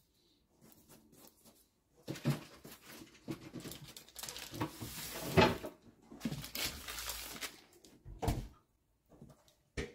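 Baking paper rustling and crinkling as a filo-pastry pie on it is handled and turned on a counter, with small handling knocks and a low thump about eight seconds in.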